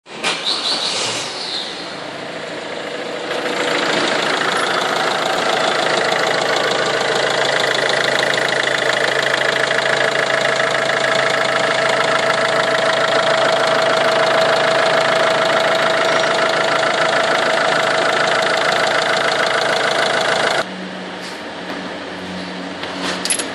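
Peugeot Partner's 1.6 HDi turbo-diesel engine starting, then idling steadily. It grows louder about three seconds in and is switched off suddenly about twenty seconds in.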